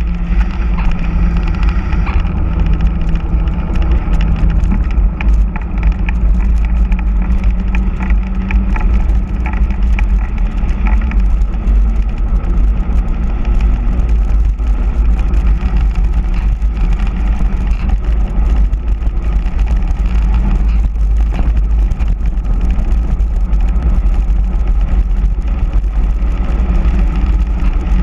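Heavy wind rush and buffeting on the microphone of a handlebar-mounted camera on a mountain bike descending at speed, a deep steady rumble. Under it runs a steady hum from the bike's all-terrain tyres rolling on asphalt.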